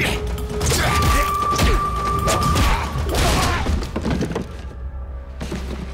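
Cartoon fight sound effects over background music: a run of thuds and impacts, with a held ringing tone about a second in, then cardboard boxes crashing down off warehouse shelves.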